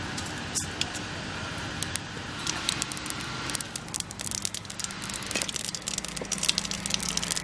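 Mustard seeds crackling and popping in hot oil for a tempering, the pops starting sparse and growing dense from about three and a half seconds in, over a steady low hum.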